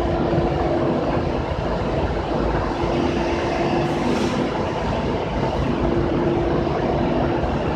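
Sawdust charcoal making machine running: a loud, steady mechanical rumble with a hum that fades in and out.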